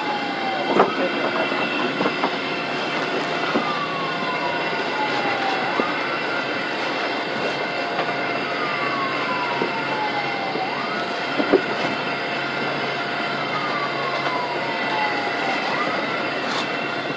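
Ambulance siren wailing, heard from inside the ambulance: a tone that holds high, slides slowly down and then sweeps quickly back up, about every five seconds, over a steady rumble of road and engine noise. A couple of sharp clicks come through, about a second in and again past the middle.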